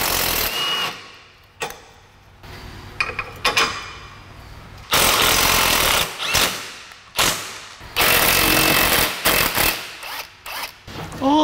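Cordless impact wrench hammering in several short bursts, breaking loose rear suspension bolts on a Honda Element, with clicks and clanks of tool and metal between the bursts.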